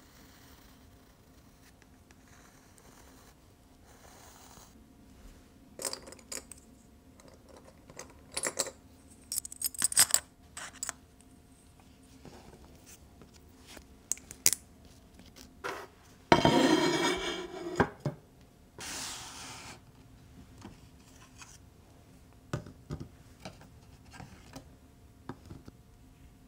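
Painting supplies being handled: scattered small clinks, clicks and taps of brushes, paint containers and a palette, with a rustle of nearly two seconds about sixteen seconds in.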